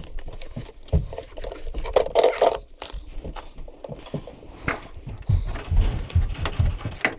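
Handling noises: scattered knocks, clicks and rustling as someone moves equipment about on a basement floor.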